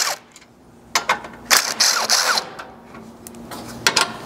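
Cordless power driver with a 10 mm socket backing out bracket screws in short bursts. The motor whine rises through each burst, strongest about a second and a half in, with a few clicks between bursts as the socket is moved to the next screw.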